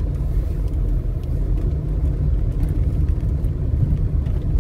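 Steady low rumble heard from inside a car driving slowly along an uneven, patched asphalt street: engine and tyre noise with a few faint light clicks.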